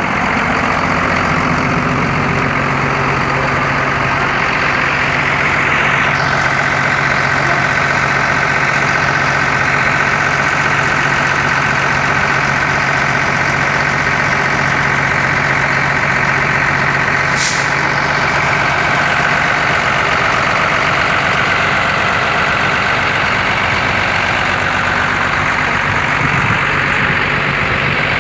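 A large bus's diesel engine running steadily and loud, with a short high hiss about 17 seconds in. No telolet horn is sounding.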